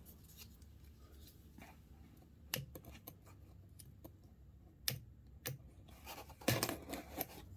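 A knife cutting open the taped cardboard package: a few faint scratchy slices and clicks, a sharp one about two and a half seconds in, two more around five seconds, and a louder run of scraping cuts near the end.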